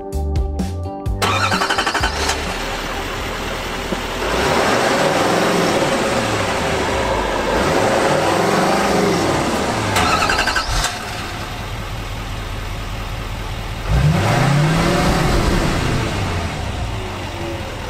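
A short music sting, then a GMC Sierra HD AT4's 6.6-litre Duramax turbo-diesel V8 running and being revved several times, its pitch rising and falling with each rev. It gets louder about four seconds in and again near the end.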